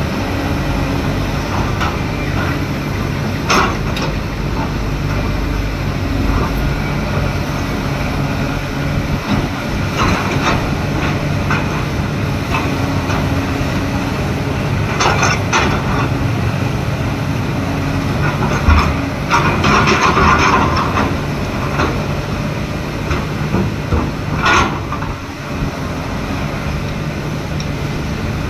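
Heavy diesel excavator engine running steadily, with several brief sharper noises over it and a longer one about two thirds of the way through.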